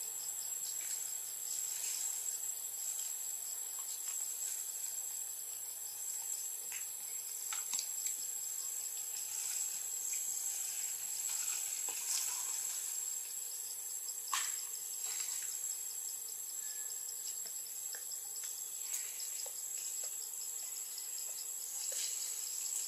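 Steady high-pitched drone of insects, with a few faint sharp clicks scattered through it.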